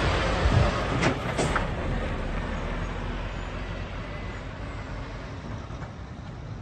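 Scania P360 8x4 truck's diesel engine pulling away and receding, its sound fading steadily. Two sharp knocks come about a second in.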